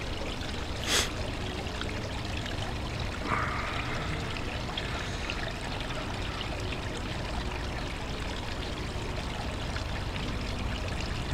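Small stream trickling and splashing over rocks, a steady watery rush. There is a short sharp noise about a second in.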